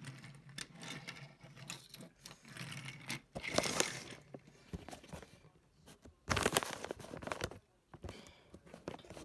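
Handling noise of toy packaging: cardboard and plastic rustling and crinkling, with scrapes and small knocks. There are two louder bursts, about three and a half and six and a half seconds in.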